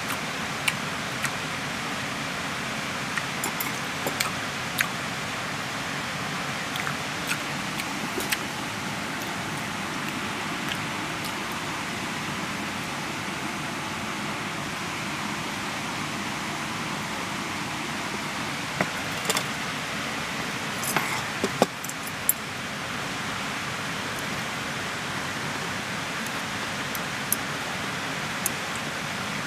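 Hard clams grilling over charcoal on a small tabletop shichirin: a steady sizzling hiss with scattered sharp pops and clicks, a small cluster of them a little past two-thirds of the way through.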